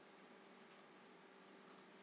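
Near silence: room tone, a faint steady hiss with a low hum.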